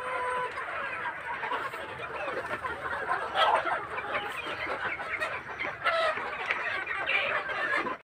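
A large flock of Sonali chickens clucking together, a continuous chatter of many overlapping calls, with a few louder calls about three and a half and six seconds in.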